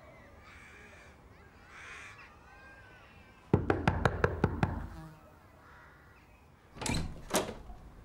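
Faint crow caws, then a rapid run of about seven sharp knocks lasting about a second, followed near the end by two heavier thumps.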